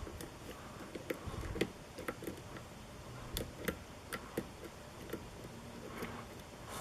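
Light, irregular metallic clicks and ticks of a hook pick and tension wrench working the pins inside a challenge lock's cylinder, with the lock held in a false set.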